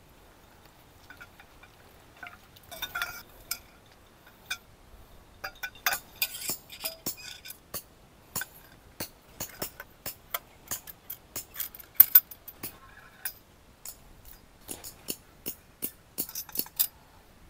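Irregular clinks and clicks of small hard objects being handled, like dishes or utensils, starting about two seconds in and coming thick and fast from about six seconds on.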